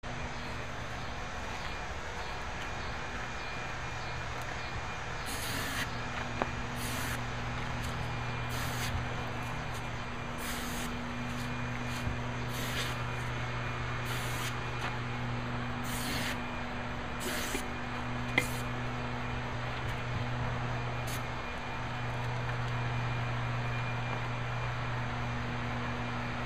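Aerosol can of carburettor cleaner sprayed in short hissing bursts, about a dozen of them, mostly in the middle stretch, with a couple of sharp clicks. A steady low hum runs underneath.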